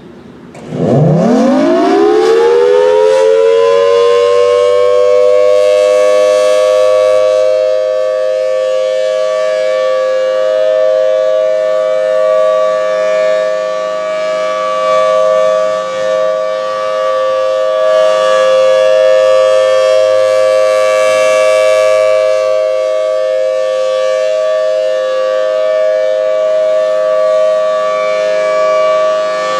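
Federal Signal Thunderbolt 1003 outdoor warning siren winding up about a second in, its pitch rising over a few seconds into a steady two-tone chord. It is sounding a steady alert for a routine siren test, its loudness swelling and dipping slightly as it runs.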